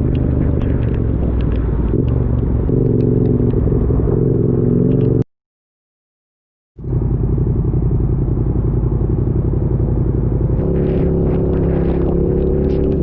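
A vehicle running steadily on the road in heavy rain: a constant low engine drone with raindrops ticking against it. The sound cuts out completely for about a second and a half just past the middle, then resumes.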